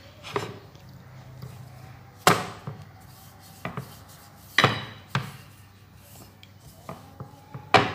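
Wooden rolling pin rolling out donut dough on a board: three sharp wooden knocks about two to three seconds apart, with a few lighter taps between.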